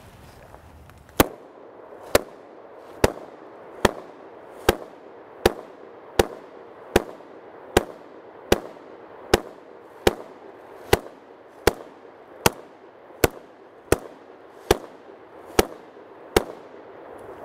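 Daewoo K2-pattern 5.56 mm rifle fired in about twenty deliberate semi-automatic shots, a little under one a second, each a sharp crack with a short echo.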